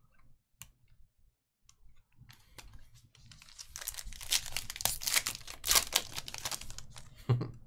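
Foil wrapper of a trading-card pack crinkling and tearing as it is pulled open by hand, starting about two seconds in.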